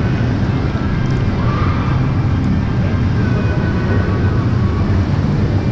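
Water rushing steadily in a fast-current river, a loud, even, low rumble with no breaks.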